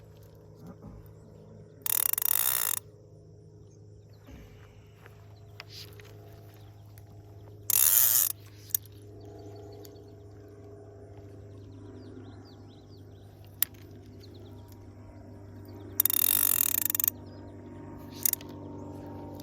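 Fishing reel ratcheting in three bursts of about a second each, a few seconds apart, as line is pulled off or reeled in, with a few single clicks between them.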